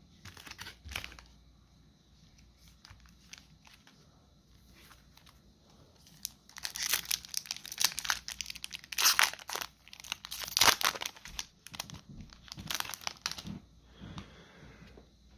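Magic: The Gathering set booster pack wrapper being torn open and crinkled: a few faint handling clicks, then a run of crackling tears and crumples from about six seconds in until near the end.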